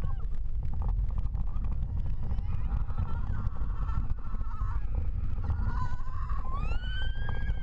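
Riders screaming on a wooden roller coaster, over heavy wind rush on the microphone and the clatter of the train on the track; a long scream rises near the end and holds.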